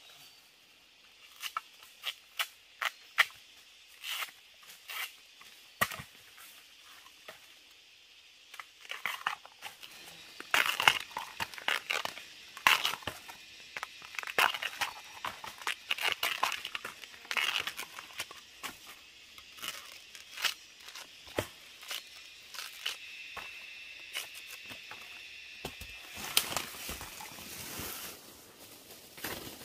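Irregular crackling, snapping and tearing of dry plant material, many short separate sounds, busier in the second half.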